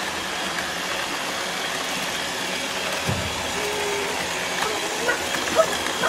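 Several robot vacuum cleaners running together, their suction fans and brush motors making a steady hiss.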